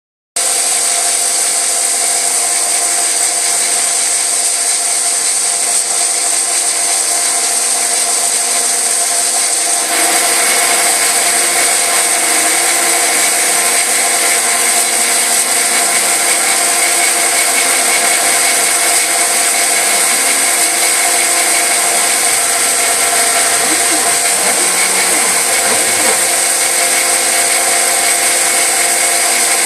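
CNC machine running, a steady machining noise with a constant whine over it; about ten seconds in it gets a little louder and a higher tone joins in.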